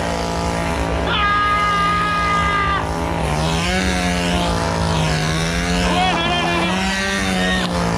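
Two-stroke chainsaw engine running at full throttle while being juggled, its steady high note wavering slightly up and down. Crowd voices and yells sound over it.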